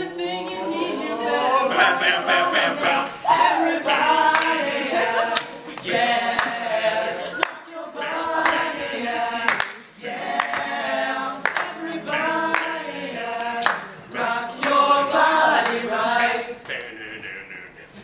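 A group of teenage boys singing a boy-band pop song together, unaccompanied, in phrases with short breaks.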